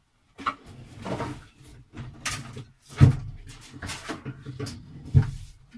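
Wooden knocks, thumps and scraping as a tall wooden cupboard is handled and worked loose, with the heaviest thump about three seconds in and another shortly after five seconds.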